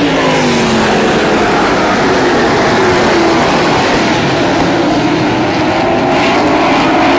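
A pack of Outlaw Super Late Model stock cars' V8 engines running loud together, many engine notes overlapping and rising and falling in pitch as the cars pass and accelerate through the turn.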